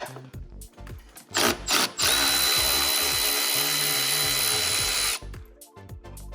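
A power drill blips twice, then runs steadily for about three seconds with a high whine and stops abruptly. It is backing out the bolts that hold the car's rear spoiler on.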